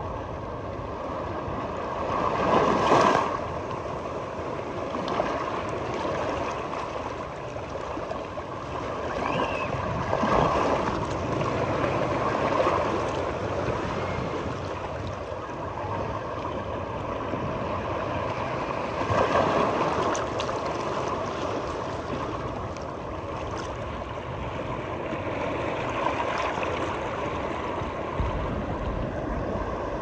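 Sea waves washing onto a beach: a steady hiss of surf that swells up every seven to nine seconds as each wave comes in.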